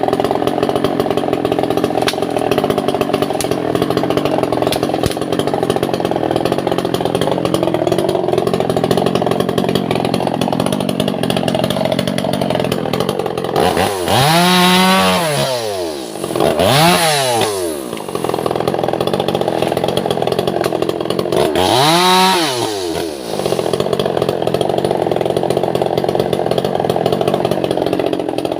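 Two-stroke chainsaw cutting albasia wood, its engine running steadily under load. About halfway through it revs up and drops back twice in quick succession, and once more a few seconds later.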